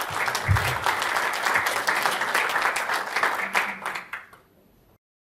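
Audience applauding, many hands clapping, with a low thump about half a second in; the clapping fades out about four seconds in.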